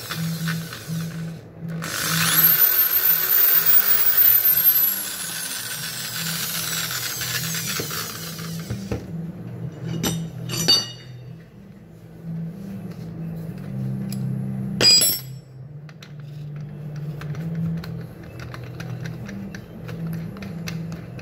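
Makita 6413 variable-speed electric drill running with its chuck off: the motor whine rises and falls with the trigger for a few seconds, then winds down. A few sharp knocks follow as the drill is handled on the bench.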